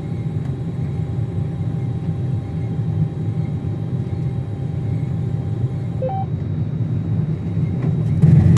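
Combine harvester running steadily under load, with a faint steady whine over the engine rumble. A short two-note electronic beep sounds about six seconds in, and the machine gets louder near the end.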